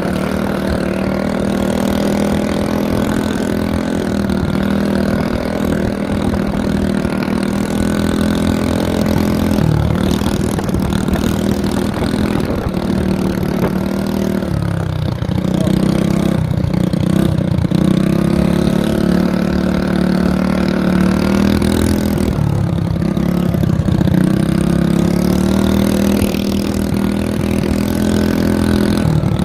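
Small engine of a mini Harley-style mini bike running under way. Its pitch drops and climbs again as the throttle is eased off and reopened, around ten, fifteen and twenty-two seconds in.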